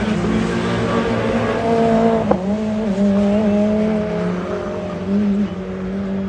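Rallycross race cars' engines running hard on the circuit, the note stepping up and down, with one sharp pop about two seconds in.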